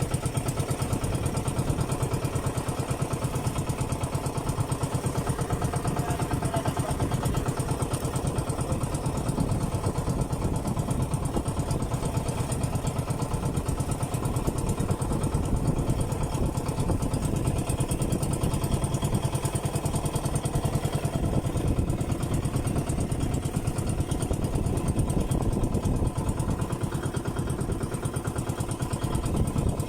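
A small boat engine running steadily at an even speed, with a fast, regular chugging pulse throughout.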